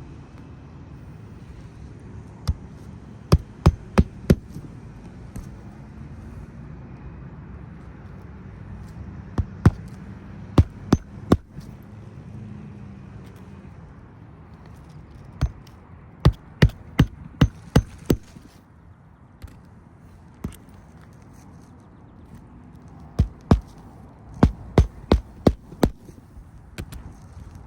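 Hammer driving roofing nails into an asphalt shingle, in runs of four to seven quick strikes a few seconds apart with a few single blows between, while the new shingle is nailed in under the lifted course above.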